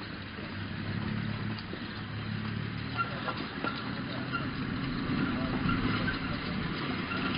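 A vehicle engine running with a low steady hum that grows slowly louder.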